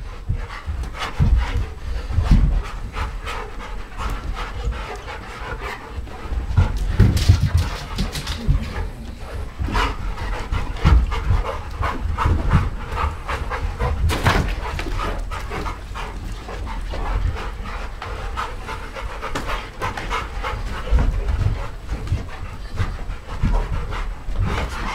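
Several dogs panting and scampering about on a carpeted floor, with many thuds of paws and a few sharp knocks, the loudest about 7 and 14 seconds in.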